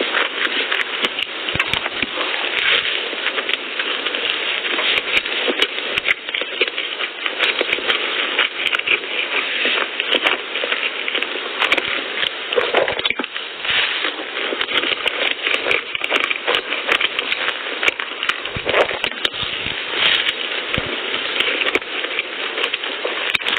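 Close-miked eating sounds: continuous wet chewing of soft cream-filled pastries, with many small mouth clicks and crackles.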